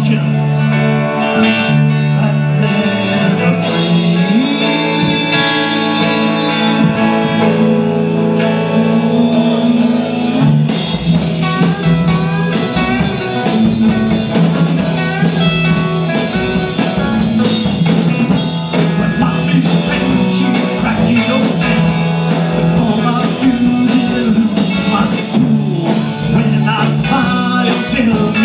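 Live band playing, with a woman singing over electric and acoustic guitars and bass. About ten seconds in, the drum kit and a deep bass line come in fully and the band plays on at full tilt.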